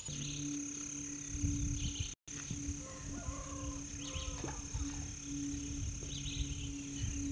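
Open-air lakeside ambience: wind rumbling on the phone's microphone, with distant birds chirping in short calls a few times and a steady low hum underneath. The sound cuts out completely for a moment about two seconds in.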